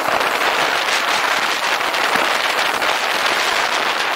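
Wind rushing over the microphone of a helmet-mounted camera on a moving motorcycle: a steady, loud hiss with rapid crackling running through it.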